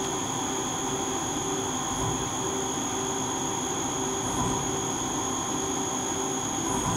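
1993 Fadal 4020 vertical machining center running a program: a steady high-pitched whine, with a lower hum that cuts in and out repeatedly over a constant mechanical noise.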